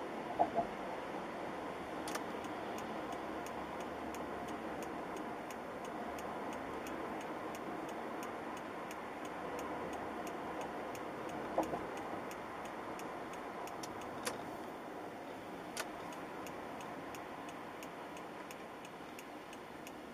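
Car cabin noise from driving, a steady road and engine rumble, with a faint, evenly paced ticking from about two seconds in. A short double blip sounds about half a second in and again near the middle.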